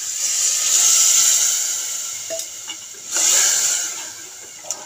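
Water poured into a hot aluminium pressure cooker of frying masala, potatoes and chickpeas, hissing and sizzling as it hits the hot oil. The hiss swells and fades over the first two seconds, then comes again briefly about three seconds in, with a few light clicks.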